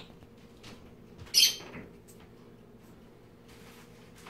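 A short, loud noise of something being handled at the kitchen counter about a second and a half in, over a faint steady hum.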